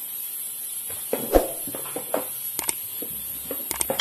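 Handling noise: a scattered series of light clicks and knocks as a motorcycle fuel level sender, its float arm and metal mounting plate, is moved about by hand.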